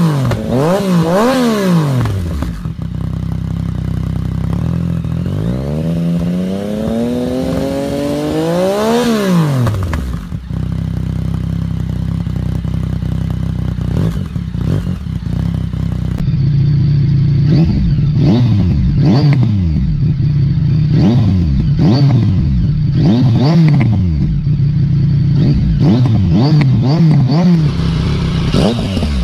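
Yamaha XSR900's 847 cc inline three-cylinder engine revved while standing, through a Zard exhaust: a quick blip, then idle, then a longer rev that climbs and drops back about nine seconds in, then idle again. After a cut about sixteen seconds in, the same kind of triple through a Termignoni exhaust, blipped rapidly about once a second.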